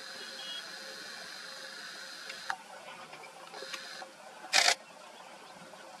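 A camera's power-zoom motor whirs steadily as the lens zooms in, then stops with a click about two and a half seconds in. It whirs again briefly, and a short loud burst of handling noise comes just after the middle.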